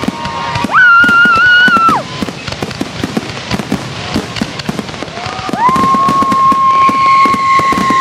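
Fireworks popping and crackling in rapid succession, with long steady high whistles: one lasting about a second near the start, and a longer one starting about halfway through.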